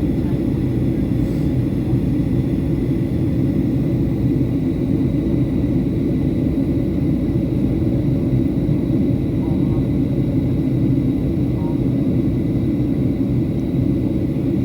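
Steady rumble of a Boeing 737-800 in flight during descent, heard inside the cabin: the CFM56 engines and airflow, with a faint steady high whine over it.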